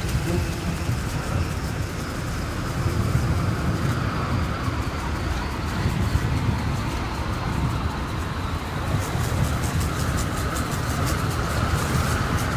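A road vehicle in motion: a steady low rumble with a faint rattle of fine ticks that grows plainer in the last few seconds.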